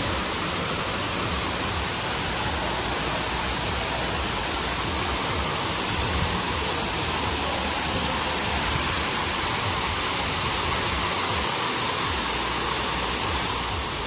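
A steady, even rushing noise.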